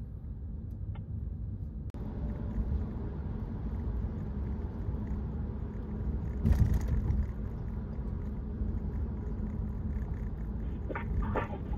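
Motorcycle at expressway speed: a steady low rumble of wind, engine and tyre noise on the rider's microphone. It grows louder for a moment about six and a half seconds in, as a lorry is passed alongside.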